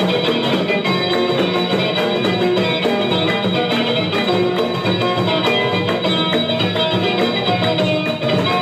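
Live band music with plucked strings and drums keeping a steady beat.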